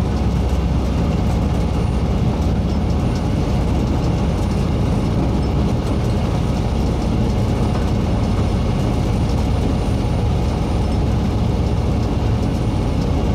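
A train running steadily along the line: a continuous low rumble of locomotive engine and wheels on the rails, even in level throughout.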